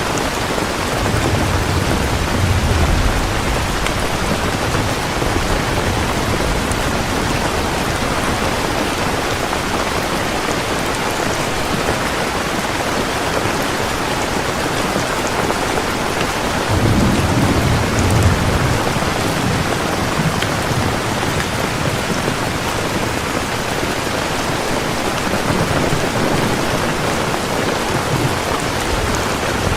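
Heavy rain falling steadily, with low rumbles of thunder about a second in and again, more strongly, just past the middle.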